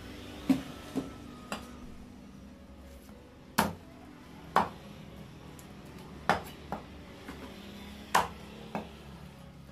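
Heavy fish-cutting blade chopping katla fish steaks on a wooden log block: about nine sharp knocks at uneven spacing, a few much louder than the rest.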